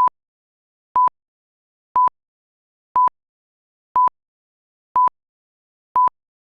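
Seven short electronic beeps of a single steady tone, evenly spaced one each second, with dead silence between them: a broadcast test-tone countdown between two cuts of a TV commercial.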